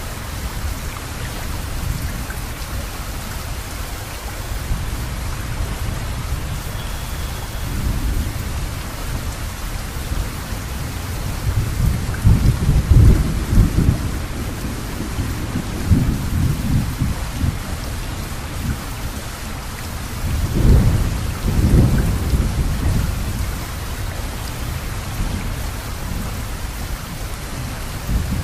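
Steady hiss of rain, with thunder rumbling low twice: a long roll near the middle and a shorter one about three quarters through.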